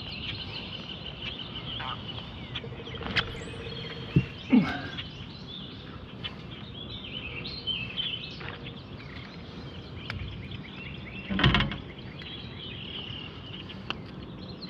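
Small birds chirping and singing continuously over a steady outdoor background. A few short knocks of handling in the boat break in, the loudest about eleven and a half seconds in.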